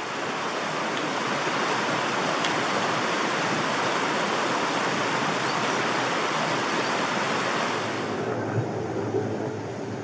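Woodland stream rushing steadily. About eight seconds in it gives way abruptly to the low, steady hum of a distant helicopter.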